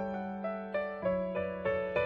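Background music: a piano-like keyboard playing a gentle melody of separate notes, about three a second, over a held low note.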